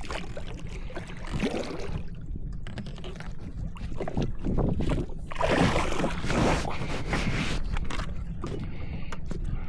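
Water sloshing and splashing around a fishing kayak, in several swelling washes over a steady low rumble.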